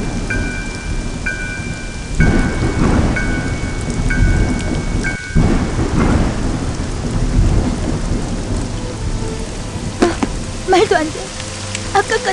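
Rain falling steadily with rolls of thunder, loudest in the first half. A repeating electronic tone of two high notes beeps about once a second over the first five seconds, then stops.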